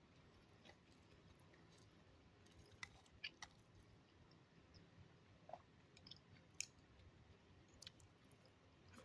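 Faint close-up chewing of a homemade omelette: quiet mouth clicks scattered throughout, with a few louder ones.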